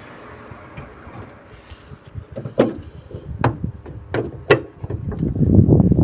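Four sharp knocks in about two seconds, then a denser, louder low clattering rattle starting about five seconds in.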